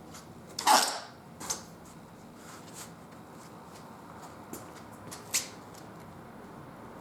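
A few scattered scrapes and clicks of a motorcycle tyre being worked onto its rim on a manual tyre changer. The loudest is a short scrape under a second in, with smaller clicks about a second later and near the end.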